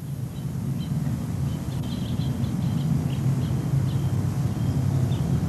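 A steady low rumble with faint, short, high bird chirps scattered through it.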